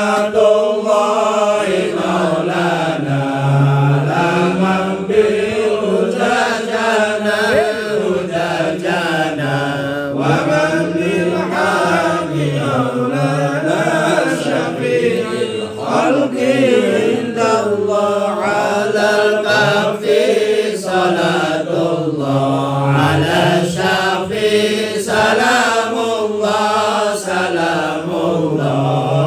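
Men's voices chanting sholawat, an Arabic devotional song in praise of the Prophet Muhammad, unaccompanied. The melody is drawn out and rises and falls without a break.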